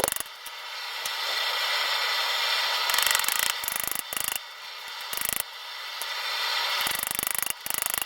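A steady mechanical rasping with a fine, rapid rattle, dropping out briefly a few times.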